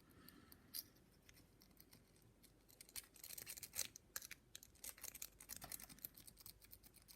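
Faint metallic clicking and scraping of a lock-picking rake worked against the pins of a padlock, sparse at first and quickening into rapid raking about three seconds in.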